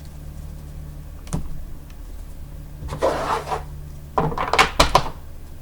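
Trading card boxes and packs being handled and moved on a table: a light knock about a second in, a short rustling slide around three seconds, then a quick run of sharp taps and clicks near the end.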